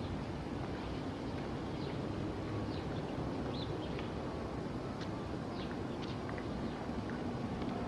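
Outdoor ambience with a steady low rumble, and a few short, high birds' chirps scattered through the middle.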